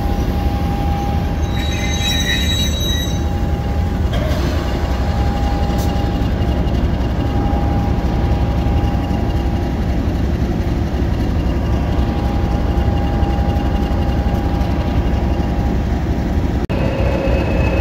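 Mainline diesel-electric locomotive's engine running at a steady idle while standing: a deep, even rumble with a faint high whine that comes and goes over it.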